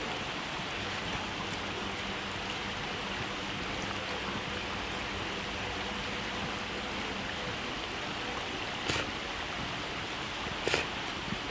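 A river rushing steadily over shallow rapids, an even wash of water noise, with two brief clicks near the end.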